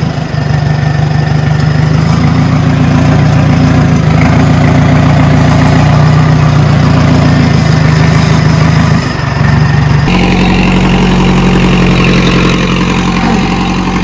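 Tractor diesel engine running steadily under load, driving a super seeder through the soil. The tone shifts abruptly about ten seconds in.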